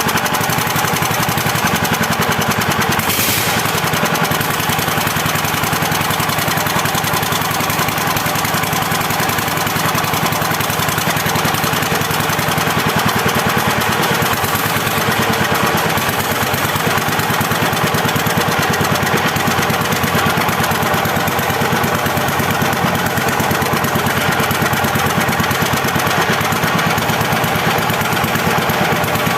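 KOYO 25HP single-cylinder diesel engine running steadily on a test run, with a loud, even, fast knocking beat.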